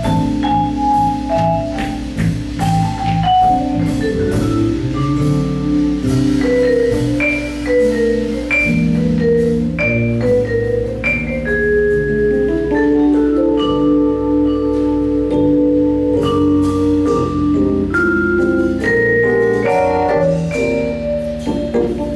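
Jazz trio playing a slow ballad: ringing vibraphone notes over electric keyboard chords and a bass line, with drums keeping light time underneath.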